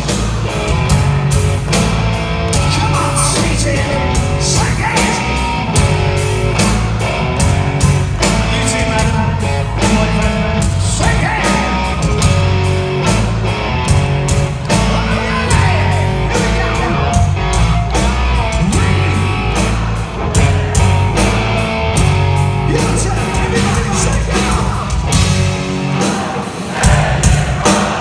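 Hard rock band playing live: distorted electric guitars, bass and a steady drum beat, with a singer's voice at times.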